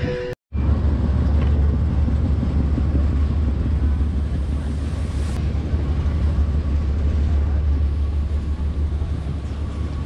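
Wind buffeting the microphone: a steady, heavy low rumble with hiss above it, starting after a brief cut just after the start.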